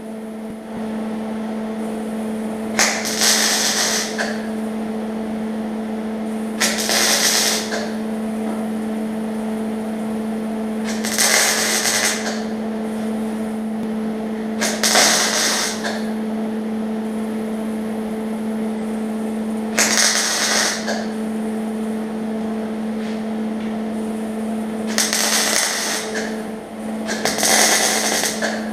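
MIG welder laying seven short tack welds on a sheet-metal quarter panel, each a crackling burst of about a second, a few seconds apart. A steady hum runs underneath throughout.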